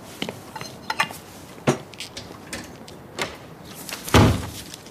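A scatter of sharp clicks and knocks, then one louder, heavier thump about four seconds in.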